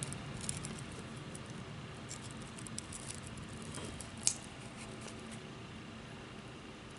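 Faint handling sounds of steel memory wire finishing pliers and glass beads as the end of a memory-wire bracelet is bent into a loop: small scattered clicks and ticks, with one sharper click a little past four seconds in.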